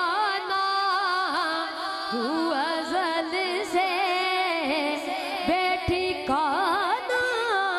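A boy's solo voice singing a naat into a microphone, drawn out in long notes that waver and bend in pitch with no clear words.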